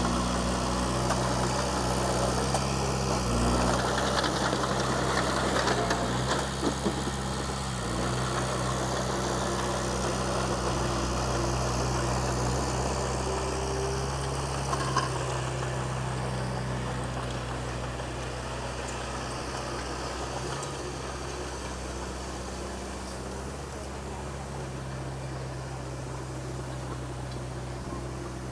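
Komatsu D20P bulldozer's diesel engine running steadily, with a few sharp metallic knocks early on the work; the engine sound eases off gradually in the second half.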